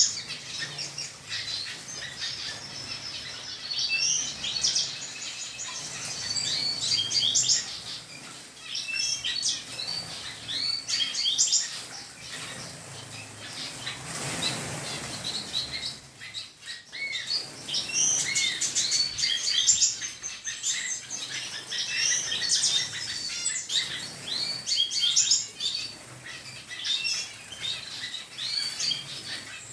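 A flock of small aviary birds, mixed finches and canaries, chirping and trilling over one another without pause, with wings fluttering. About halfway there is a brief rush of noise.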